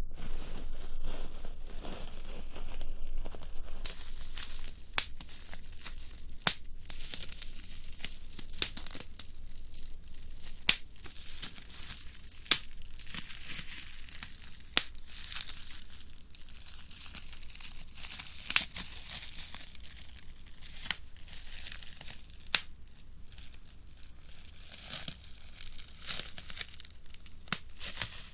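Plastic bubble wrap crushed in the hands: continuous crinkling with sharp pops of bursting air cells every second or two.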